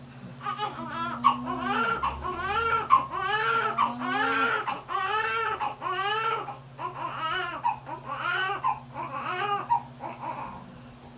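Newborn baby crying just after delivery: a run of short rising-and-falling wails, roughly one every 0.7 seconds, over a faint steady low hum.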